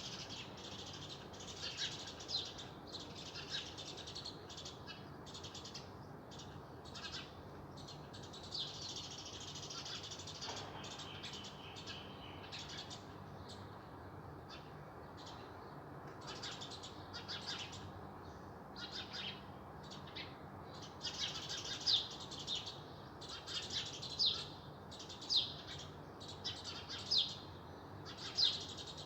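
Several small birds chirping and singing at once: a dense, continuous chorus of high, quick chirps. Louder single chirps stand out in the last several seconds.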